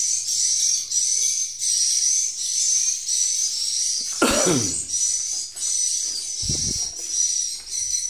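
Continuous high-pitched twittering of swiftlet calls filling a swiftlet house, repeating in quick pulses about twice a second. A short falling, voice-like sound about four seconds in and a few low knocks a couple of seconds later break through.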